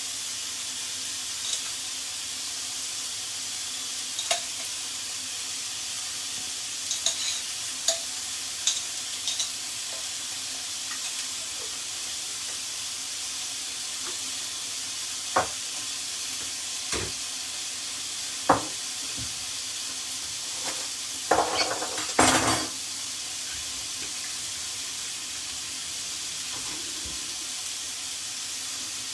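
Butterflied chicken breast frying in hot oil in a pan, a steady sizzle. Scattered clicks and knocks, likely a utensil against the pan, break in now and then, the loudest clatter about two-thirds of the way through.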